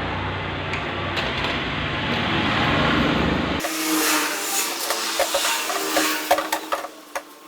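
A steady, noisy workshop hum that cuts off abruptly, followed by a run of light clicks and sharp knocks from metal gearbox parts being handled during dismantling.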